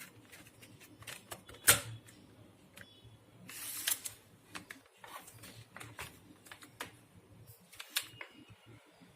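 Scattered plastic clicks and knocks, with a short rustle about three and a half seconds in, as an installation CD is handled and put into a computer's disc drive.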